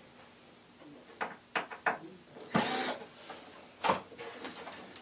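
Cordless drill run in one short burst of about half a second, driving a screw into the Lazy Susan tray. Before and after it come a few sharp clicks and knocks of screws and the drill being handled on the wooden panel.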